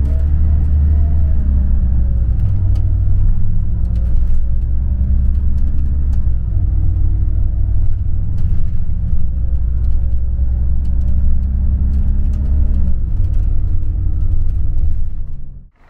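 Bus engine and road rumble heard from inside the passenger cabin while driving, a low steady drone whose engine note rises and falls slightly with speed, with a few light rattles. It cuts off abruptly near the end.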